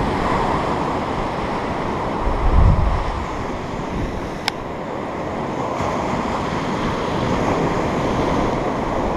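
Surf breaking and washing up a sandy beach, with wind buffeting the microphone, strongest about two and a half seconds in. A single sharp click about four and a half seconds in.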